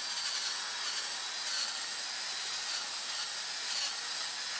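Electric drill running steadily with a high whine, drilling out the holes in a thermostat base so the wire terminals fit through.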